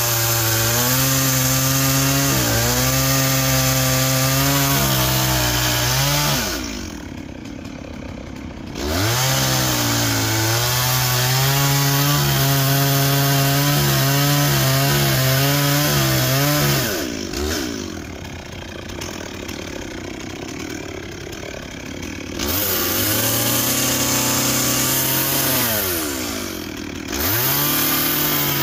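Stihl 036 two-stroke chainsaw cutting into a large log at full throttle. Three times it drops back to idle, about 6 s, 17 s and 26 s in, and revs back up into the cut.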